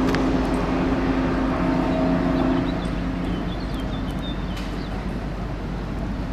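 A vehicle engine running with a steady drone that fades away about three seconds in, over steady outdoor background noise. A few faint bird chirps follow.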